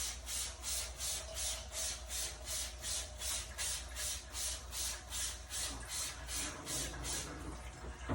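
Hand sprayer squirting cleaning solution onto dehumidifier coils in quick repeated hissing sprays, about three a second, stopping about seven seconds in.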